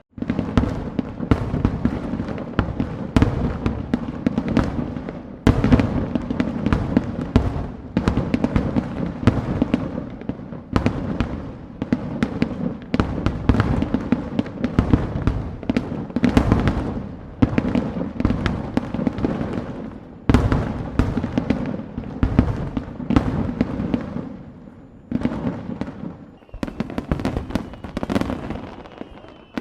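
Fireworks display: shells bursting in a rapid, near-continuous barrage of bangs, thinning out for a few seconds near the end.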